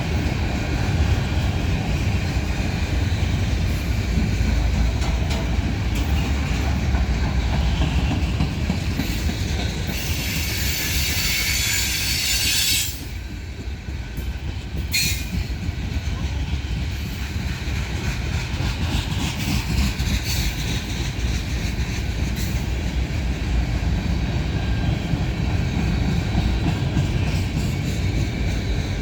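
CSX freight train rolling by: a steady low rumble of wheels on rail with clicking over the joints. About ten seconds in a high wheel squeal rises for a few seconds, then the level drops abruptly and the rumble carries on.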